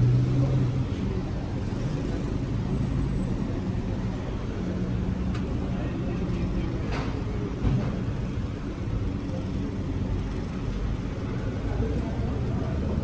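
Steady low rumble of road traffic, with engines running, and faint voices in the background.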